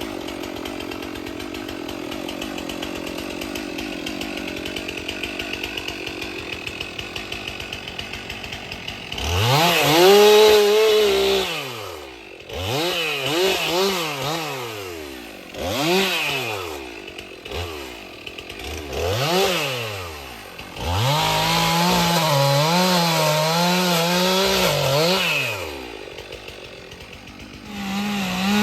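Stihl 362 two-stroke chainsaw idling for about nine seconds, then revved again and again, its pitch rising and falling with each squeeze of the throttle. A longer steady, wavering spell at full speed comes later as it cuts through brush and small trees.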